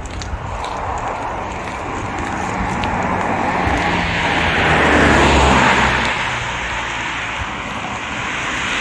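Road noise from a moving vehicle: a low engine hum under tyre and air noise, swelling louder about halfway through and easing off again.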